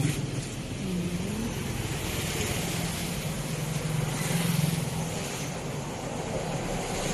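Street traffic: a motor vehicle engine running close by, with a steady low hum that swells slightly about four seconds in.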